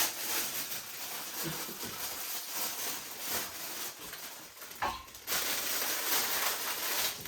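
Steady hiss of a kitchen fan, with a few knocks of handling in the kitchen; the loudest, with a short ring, comes about five seconds in.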